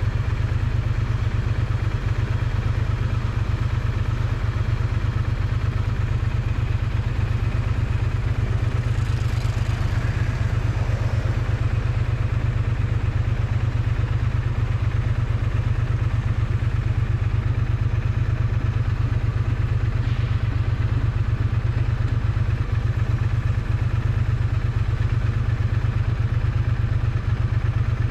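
Triumph Bonneville T100 parallel-twin exhaust running steadily at an even engine speed, heard close up from beside the exhaust, with no revving.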